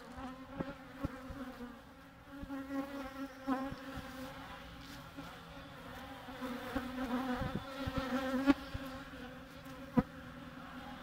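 Honeybees buzzing close to the microphone, a steady hum with a few swells, broken by several sharp knocks and rustles of handling.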